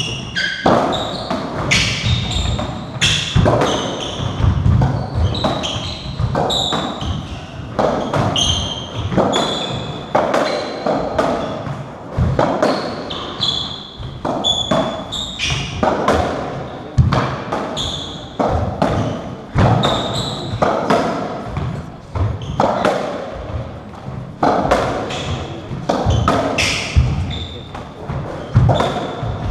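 A racketball rally in an enclosed squash court: the ball is struck by the rackets and knocks off the walls and wooden floor, about one hit every half-second to second, with short high squeaks of court shoes and footfalls between the hits, all echoing off the hard walls.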